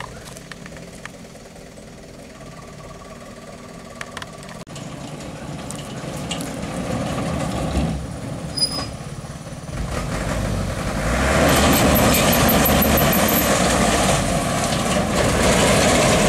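Dump truck's diesel engine running under heavy load, swelling to a loud, steady hard revving about ten seconds in as the truck works through deep mud.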